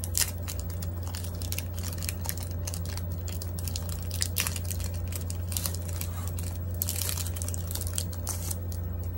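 Pokémon card booster pack's foil wrapper crinkling and tearing as it is opened by hand, with many short crackles throughout.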